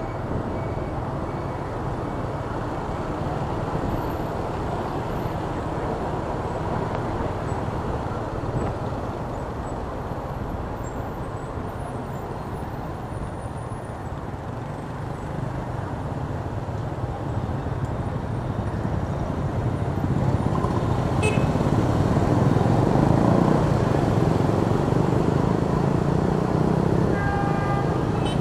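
Street traffic heard from a moving motorbike: a steady rumble of engines and road noise from the surrounding scooters and cars, growing louder about two-thirds of the way through.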